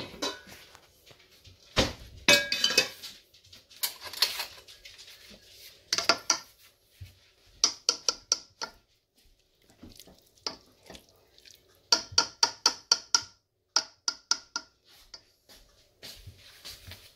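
A spoon clinking, knocking and scraping in a cooking pot, with several quick runs of sharp ringing taps, the longest a little past the middle.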